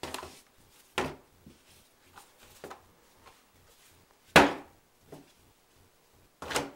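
Pizza dough being slapped down onto a wooden tabletop: four heavy smacks with a few softer knocks between, the loudest a little past the middle.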